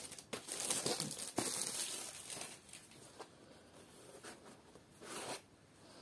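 A small cardboard box of dates being handled: soft rustling, scraping and light taps, busiest in the first two seconds, quieter after, with a short rustle a little after five seconds.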